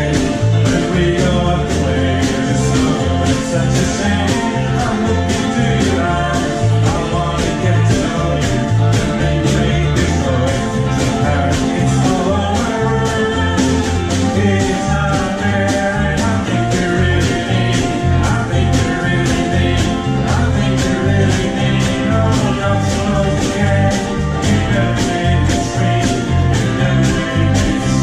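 Live ukulele band playing: several ukuleles strummed in a steady, bouncy rhythm over changing bass notes, with a woman singing the melody.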